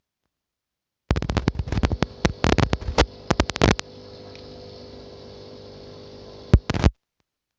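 A flurry of sharp knocks and clicks lasting a few seconds, then a steady hum, with two more knocks just before the sound cuts off.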